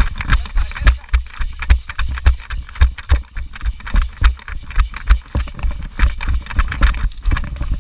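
Footsteps of a person running, with heavy low thumps about two a second and sharp clattering in between.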